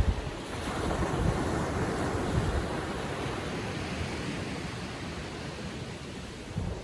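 Small ocean waves breaking and washing up on a sandy beach in calm seas, a steady surf wash, with wind buffeting the microphone in low rumbles and a brief bump right at the start.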